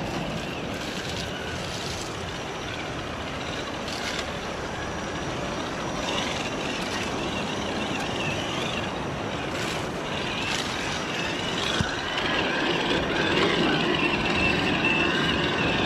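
Electric motor and gearbox of a Gmade GS02F Buffalo TS 1/10-scale RC crawler whining as it crawls over rock, the whine wavering up and down with the throttle, with a few sharp knocks. It grows louder in the last few seconds.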